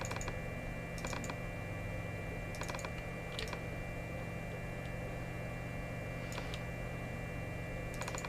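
Scattered clicks of a computer keyboard and mouse, shift-clicks while working, coming every second or few, often in quick pairs, over a faint steady hum.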